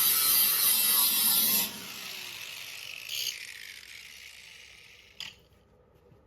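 A grinder runs loud for the first second and a half, then is switched off. Its wheel spins down with a falling whine that fades over the next few seconds. A single sharp click comes about five seconds in.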